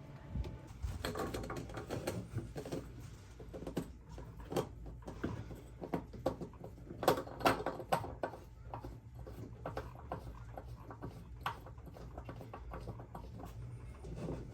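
Irregular small clicks, taps and scraping of hand work with tools and plumbing parts, with a louder cluster of knocks about seven to eight seconds in.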